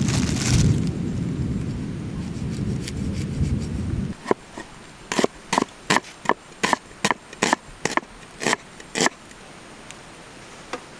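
A low, heavy rumble that cuts off abruptly about four seconds in, followed by about ten sharp chopping strokes of a blade on wood, roughly two a second.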